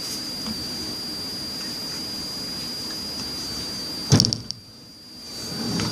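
Steady background hiss with a thin high whine. About four seconds in comes a sudden loud knock, after which the hiss drops away for about a second and then returns.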